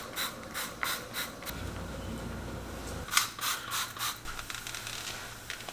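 Trigger spray bottle being squeezed again and again, each pull a short hissy squirt with a click of the trigger. The squirts come in two quick runs: about five in the first second and a half, then about six more from about three seconds in.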